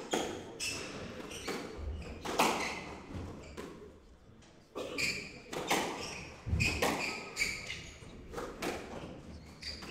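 Squash rally: the ball cracks off rackets and smacks the walls in about a dozen irregular knocks, with short sharp squeaks of court shoes on the wooden floor between them, echoing in the court.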